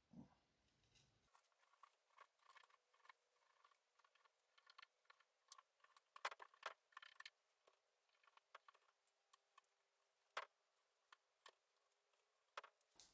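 Near silence with faint, irregular clicks and taps scattered through it; a few are sharper, about halfway through and again near the end.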